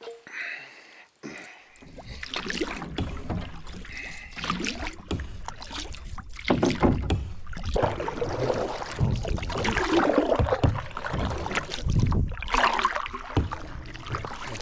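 Canoe on the water: paddling and water noise, starting about two seconds in and continuing irregularly.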